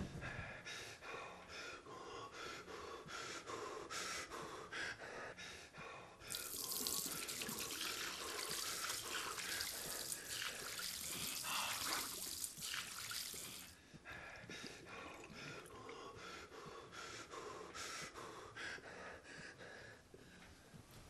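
Bathroom tap running hard into a sink for several seconds in the middle, with quieter splashing and dripping before and after as a man washes at it.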